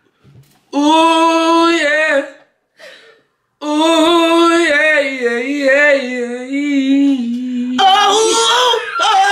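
A young man singing wordless, unaccompanied "ooh" runs in a high voice: a short phrase, a pause, then a long phrase with wavering, sliding notes. Near the end a second man's voice joins in over it.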